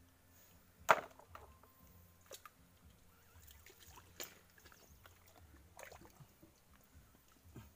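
Hands digging clams out of wet mangrove mud: faint sloshing of water and mud, with a few sharp knocks, the loudest about a second in.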